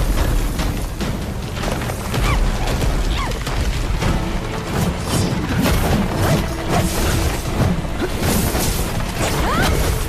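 Dramatic background music mixed with sound-effect booms and crashes.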